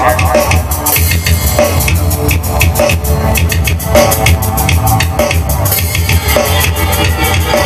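Hip-hop backing beat played loud over a PA: heavy, steady bass with regular drum hits.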